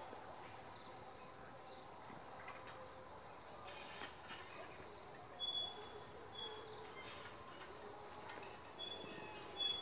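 Steady high-pitched insect chorus, with short high chirps now and then. A few faint rustles, about halfway through and again near the end, as the bottle rocket's fuse is handled.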